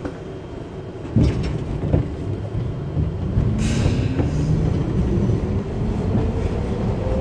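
Subway train pulling out of the station, heard from inside the car: a knock about a second in, then the traction motors' whine rising steadily in pitch as the train gathers speed. A short hiss comes about three and a half seconds in.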